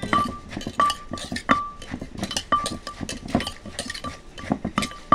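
Papaya salad being pounded in a clay mortar: a wooden pestle thuds into the shredded green papaya while a metal spoon clinks against the clay, at an uneven pace of about two strikes a second, several clinks ringing briefly.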